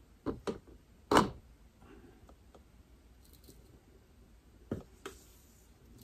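A few short taps and knocks as a dehydrator tray is tipped against a plastic funnel to pour dried cassava flour into a glass jar. Two come quickly just after the start, the loudest about a second in, and two more near the end.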